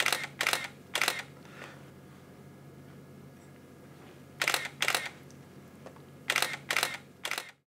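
Single-lens reflex camera shutter firing eight times in three groups: three shots at the start, two about four and a half seconds in, and three near the end, each a sharp mechanical click. A faint steady low hum lies underneath.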